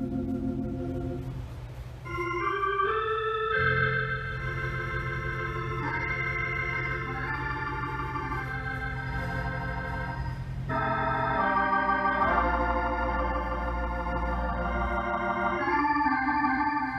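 Console organ played solo: held chords over a sustained bass note, with a short lull about two seconds in before the chords swell back in.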